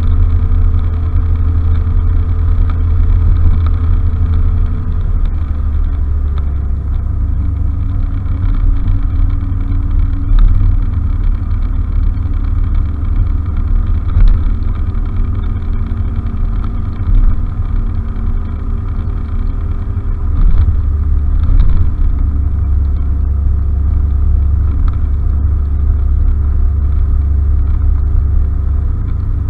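Honda Fusion scooter's single-cylinder engine running while riding, with a heavy low rumble underneath. The engine note drops about five seconds in, then holds steady.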